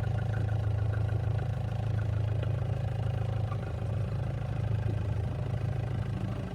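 Off-road safari vehicle's engine running steadily, a low hum, with a faint regular ticking over it for the first few seconds.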